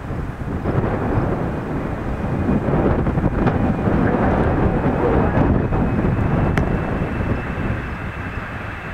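Boeing 737 jet airliner on final approach, its jet engines rumbling as it comes overhead. The sound grows to a peak about halfway through and then eases off, with a thin steady high whine over the rumble in the second half.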